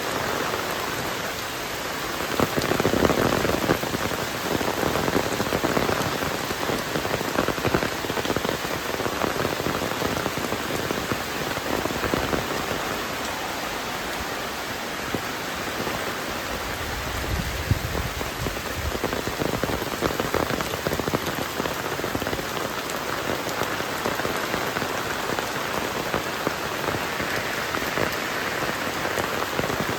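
Heavy rain falling steadily, with a brief low rumble a little past the middle.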